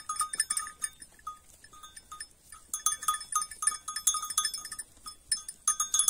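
Kıvırcık sheep cropping dry grass close by: quick runs of crisp tearing and crunching bites, many with a short ringing edge. The bites thin out about a second in and come thick again from about three seconds.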